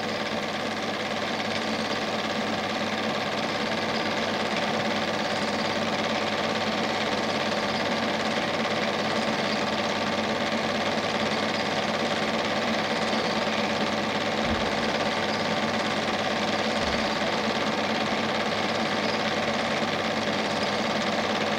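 Standard 8 cine projector running: a steady mechanical whirr and hum with no change in pace.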